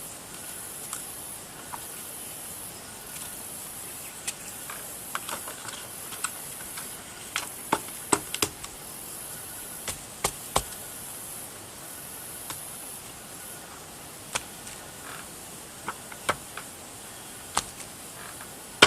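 A rubber stamp pressed down onto paper on a tabletop again and again, giving light, sharp taps at irregular intervals over a faint steady hiss.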